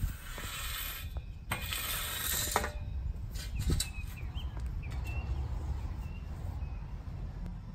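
A 36-inch metal landscape rake scraping and rattling as it is dragged over a lawn through top dressing for the first two or three seconds, then a couple of knocks as it is set down. A steady low rumble runs underneath.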